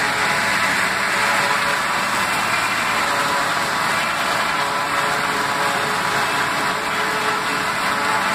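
John Deere 2755 tractor's diesel engine running under load, with a pull-type John Deere forage harvester chopping standing corn stalks. The sound is a loud, steady mechanical din from the engine, cutterhead and blower.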